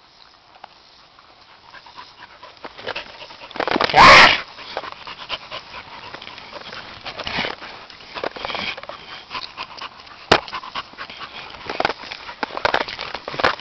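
Dogs panting and scuffling close by during rough play on grass. There are scattered short breaths and rustles, and one loud, short cry about four seconds in.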